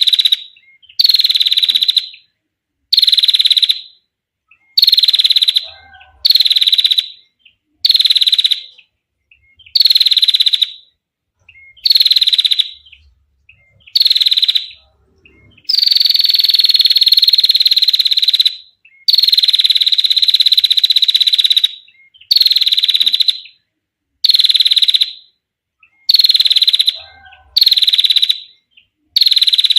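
Female prinia (prenjak) giving its dry, rapid rattling trill (ngetir) over and over, each trill about a second long with short silent gaps and a slight fall in pitch, and one longer trill of about three seconds about halfway through.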